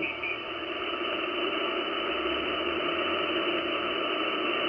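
Icom IC-756PRO HF transceiver receiving empty 10-metre band noise: steady static hiss with no signal on the frequency, heard through the receiver's narrow voice filter while the band is slowly tuned.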